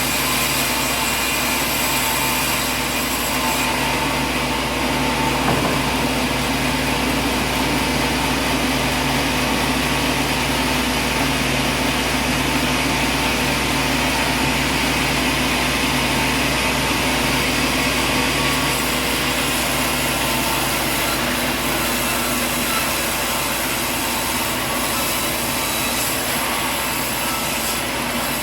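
Machinery running steadily: an even mechanical whine over a dense hiss, with no breaks or changes in level.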